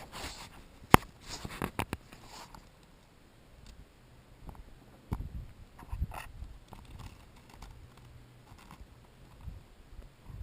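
Close, irregular crunches, scrapes and knocks of movement or handling, with one sharp click about a second in and a short cluster of noises just after it.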